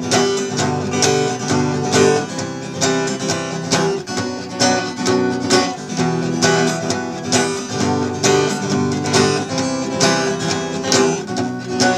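Instrumental guitar music, a passage of the song with no singing.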